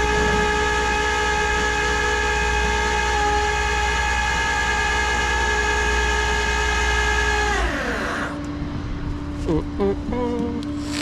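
Tow truck's hydraulics or winch running under power: a loud steady whine over a low hum that glides down in pitch and stops about three-quarters of the way through, leaving a lower steady tone.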